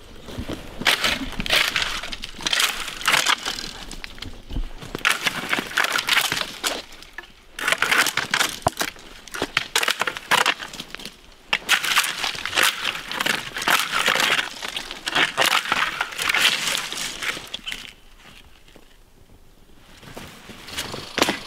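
Footsteps crunching through dry brush and leaves, in irregular runs broken by short pauses and a longer quieter stretch near the end.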